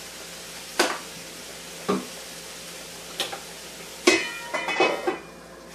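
Vegetables sizzling faintly in oil in a frying pan, with cookware knocking three times, then a short burst of ringing clatter of pots and utensils about four seconds in.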